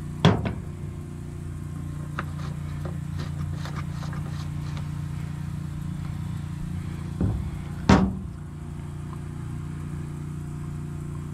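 Steady low hum of an idling engine, with handling knocks and clicks as a string trimmer is fuelled and its fuel cap handled. Two sharp knocks, one just after the start and one about eight seconds in, are the loudest sounds, with light clicks between them.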